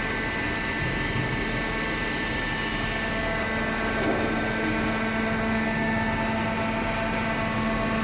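Hydraulic waste-paper baler's power unit (electric motor and pump) running with a steady drone: a strong low hum with several fainter, higher steady tones above it.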